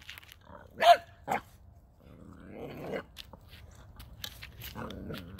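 A 9-week-old boxer puppy barking: one sharp, loud bark about a second in and a shorter one just after, then softer rougher sounds. These are among its first full barks rather than puppy yelps.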